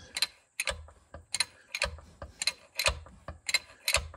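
Hydraulic jack on a shop press being pumped by hand as it presses a pulley onto a water pump shaft: sharp clicks about twice a second, with a dull knock about once a second.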